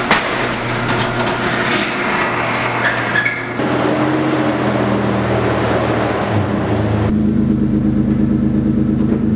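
A garage door rolling open with a rattle, then a third-generation Toyota 4Runner's engine running steadily as the SUV moves about, its pitch changing a few times.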